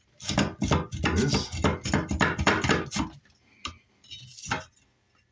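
A metal hand tool clattering and knocking on a small metal sink fitting, in a fast run of sharp clinks for about three seconds, then two single clicks.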